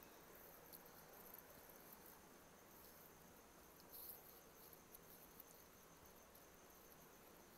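Near silence: faint room tone with a steady high hiss.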